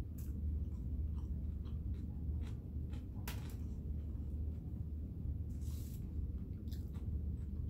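Chewing and mouth sounds of someone eating a barbecue sandwich: scattered small wet clicks, a sharper one near the middle and a brief rustle about three-quarters through, over a steady low hum.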